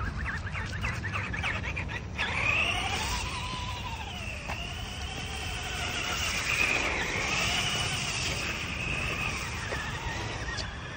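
Electric RC buggy's motor and gears whining, the pitch rising and falling again and again as the throttle is worked while it drifts on ice and snow. There are a few sharp ticks in the first couple of seconds, and a low steady rumble underneath throughout.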